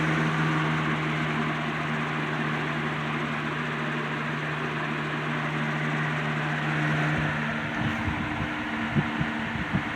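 Lasko 3733 20-inch box fan running on medium speed: a steady motor hum with the rush of air from the blades. Near the end the hum changes and the airflow starts buffeting the microphone in uneven thumps.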